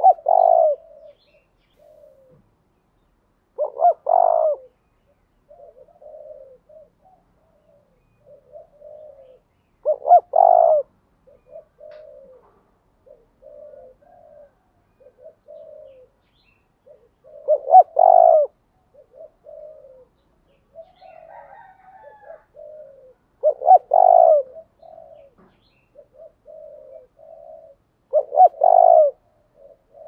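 Caged decoy spotted dove cooing. Six loud, short coo phrases come a few seconds apart, with softer, lower coos in between.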